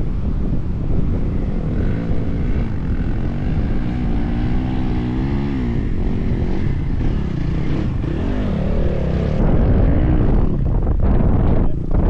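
Wind buffeting the microphone, with a dirt bike's engine revving up and down, its pitch rising and falling several times from about two seconds in. The wind noise grows louder near the end.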